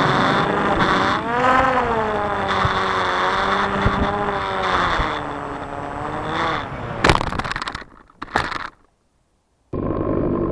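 RC plane's motor and propeller heard from the onboard camera over wind rush, the pitch rising and falling with the throttle. About seven seconds in there are a few loud crackles, then the sound cuts out for about a second and comes back.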